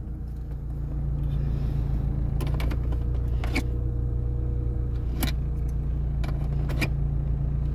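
Mitsubishi Lancer's 4G92 1.6-litre four-cylinder engine idling, a steady low hum heard from inside the cabin. A few short sharp clicks and rattles come over it.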